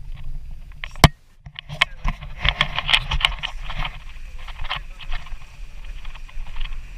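Car rolling slowly over a wet, potholed gravel and mud road, heard close from outside the car: a steady low road rumble with a dense crackle of tyres on loose stones and mud. There is a sharp knock about a second in, followed by a short drop in sound.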